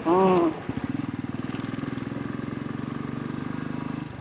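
Motorcycle engine running steadily under way, its firing pulses even. It is preceded by a short, loud pitched sound that rises and falls in pitch and ends about half a second in.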